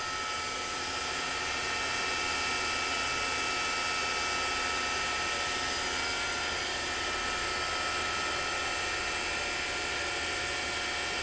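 Fadal 6030 HT vertical machining center's CAT 40 spindle running steadily at about 7,000 RPM: an even whine made of several steady high tones over a machine hum, getting slightly louder about a second in.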